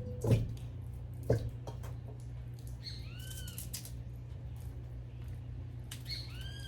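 A bird calls a short, arched, rising-and-falling note about every three seconds. Two sharp knocks come near the start, and a steady low hum runs underneath.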